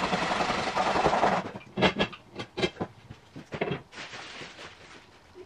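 Hand jab saw rasping through a plaster moulding for about a second and a half, then several sharp knocks as the cut pieces and the saw are set down on the wooden work table.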